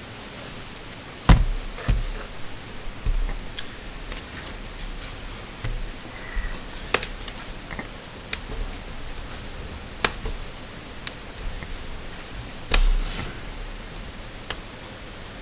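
Irregular clicks and light knocks of laptop parts and small tools being handled during a teardown, over a steady hiss. The loudest knock comes about a second in.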